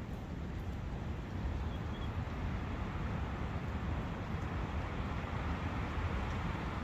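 Steady outdoor ambience of wind and a flowing brook: an even, unbroken rushing noise.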